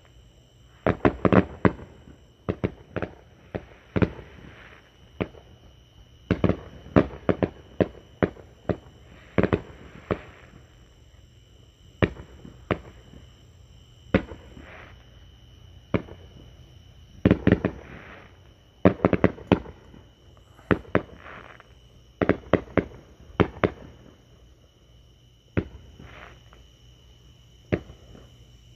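Fireworks display: aerial shells bursting with sharp bangs at irregular intervals, often several in quick succession.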